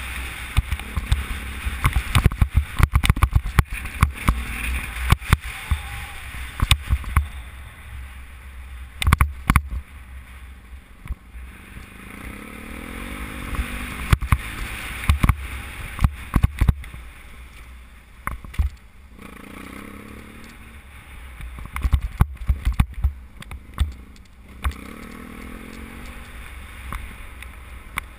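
BMW F800GS parallel-twin engine running and revving up and down on a rough dirt track, under wind buffeting on a helmet-mounted microphone. Frequent knocks and rattles come from the bike and rider jolting over stones and ruts.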